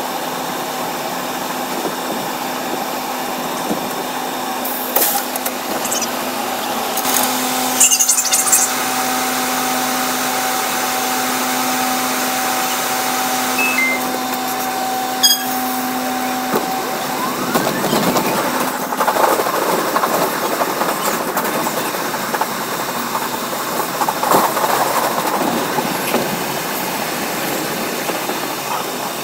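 Bombardier R62A subway train running, heard from the front car: a steady hum with held tones, then a rising whine as it picks up speed, followed by rougher rail noise.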